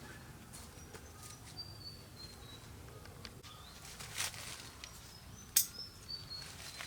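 Outdoor rural ambience: a small bird calling twice in short runs of high notes that step down in pitch, with scattered sharp clicks and a brief rustle.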